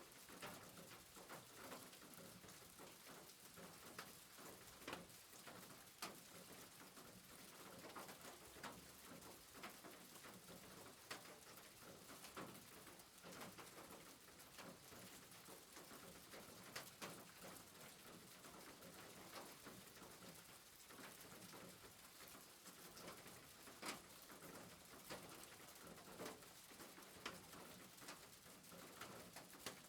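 Rain falling on a roof: a faint, steady patter with irregular louder drops striking.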